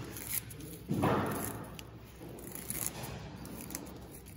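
Leaves and twigs of a Chinese elm bonsai rustling as they are pulled off by hand, loudest about a second in, with a few light clicks.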